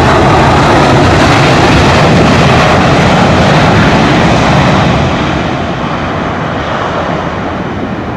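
Loud, steady jet-engine noise of a Citilink Airbus A320 rolling out on the runway after touchdown, its wing spoilers raised. It fades over the last few seconds as the airliner slows and moves away, then cuts off abruptly at the end.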